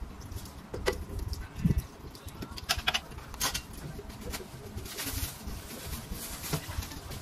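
Café counter work sounds: scattered clicks and knocks of cups and equipment being handled by the espresso machine, over a low steady rumble.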